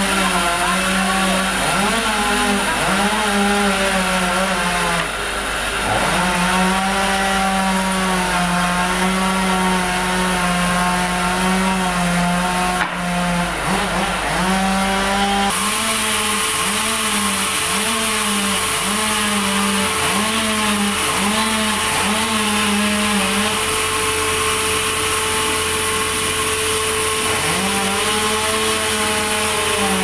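Large vertical band sawmill running and cutting a log: a loud steady machine hum whose pitch dips and recovers again and again, with stretches where it holds steady. The tone shifts abruptly about halfway through.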